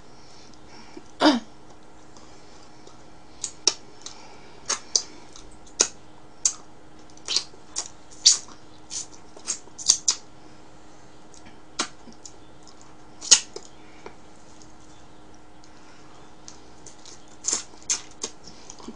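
Close-up eating noises of a person chewing pizza: irregular wet mouth smacks and clicks, about one a second, with a short falling squeak about a second in.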